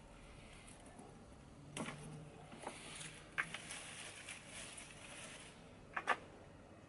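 Rustling and scraping of potting compost and plants being handled in a plastic trough planter, with a few sharp clicks and a quick double click near the end.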